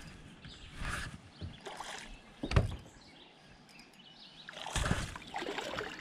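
Scattered knocks and rustling on a small fishing boat while a small fish is played in on the line, with the loudest, sharp knock about two and a half seconds in.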